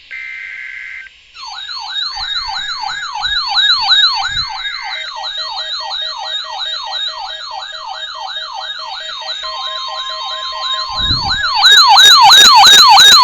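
Electronic siren yelping, its pitch sweeping rapidly up and down about three times a second, becoming much louder and harsher about twelve seconds in.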